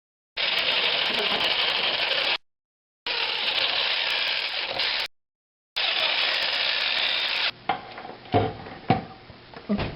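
Electric jigsaw cutting through pumpkin in three bursts of about two seconds each, a loud steady hiss-like noise that stops abruptly between bursts. In the last couple of seconds it gives way to a few quieter knocks and handling sounds.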